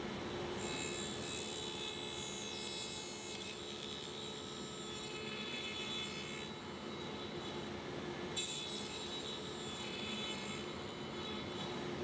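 Table saw with a dado stack running with a steady hum, cutting a tenon in a pine test piece in two passes: the first starts about half a second in and lasts about three seconds, the second starts a little past eight seconds.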